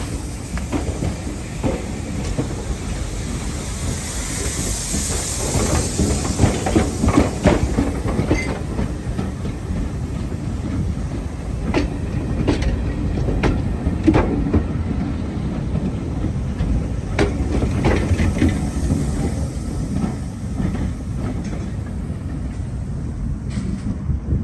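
Train running on the rails: a steady low rumble with irregular sharp clicks as the wheels pass over rail joints.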